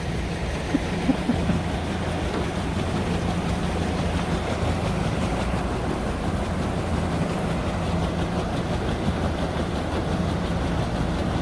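Engine of a Sherp 10x10 amphibious all-terrain truck running at a steady, even speed, a continuous low drone with a few faint clicks about a second in.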